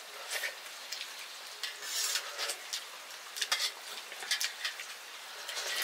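A metal utensil scraping and clinking irregularly in a pan as noodles are stirred, over a faint frying hiss.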